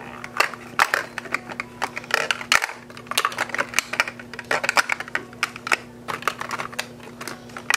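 Plastic makeup bottles and compacts clicking and knocking against each other as a hand rummages through and rearranges them in a makeup kit case: many quick, irregular light clicks, over a faint steady hum.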